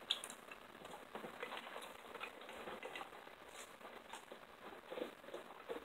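Eating sounds: chewing, mouth clicks and smacks as fried chicken is eaten, in a scatter of small irregular clicks.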